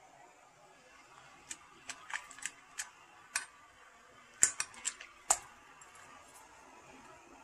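A metal fork clinking and tapping against stainless steel pans: a scattered run of about a dozen sharp clicks, the two loudest knocks about four and a half and five seconds in.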